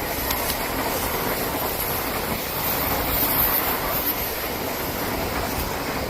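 Odakyu Line electric train passing at speed, a steady rush of wheels on rails that swells a little midway.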